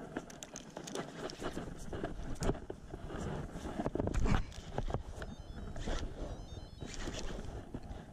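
A dense, irregular run of knocks and clicks over a steady wash of noise, with a louder cluster of knocks about four seconds in.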